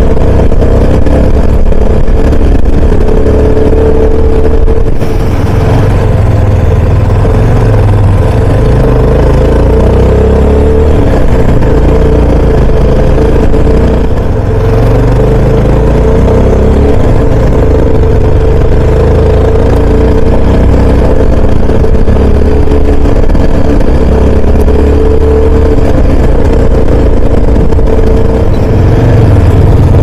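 Motorcycle engine running under way for the whole stretch, its pitch rising and falling with the throttle, over heavy low rumble on the microphone.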